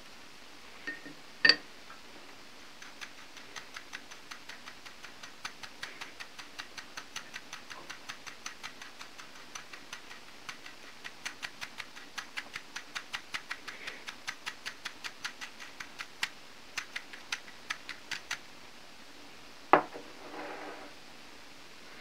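Wooden chopsticks clicking against a ceramic bowl while stirring, in a steady rhythm of about three clicks a second that runs for some fifteen seconds. A single sharp tap comes just before it, and a loud knock with a short rattle comes near the end.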